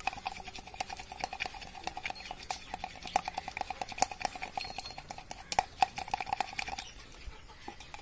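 A utensil beating a raw egg and fish oil in a small plastic cup: rapid, even tapping and clicking against the cup wall, several strokes a second, whipping the mix to a froth. The beating stops about seven seconds in.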